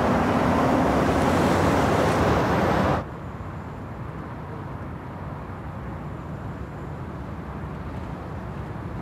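A car driving past fast on a road, a loud rushing pass-by that cuts off suddenly about three seconds in. It gives way to the steady, quieter rumble of road and engine noise inside a moving car.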